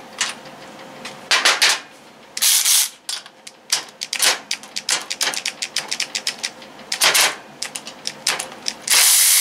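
Rapid mechanical ratchet clicking, with two short bursts of a 12V cordless electric ratchet's motor running on a socket on a bolt held in a vise, about two and a half seconds in and again near the end.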